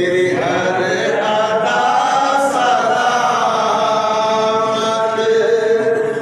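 Male voices singing an Urdu Sufi manqabat unaccompanied, in a chanting style, with long held notes.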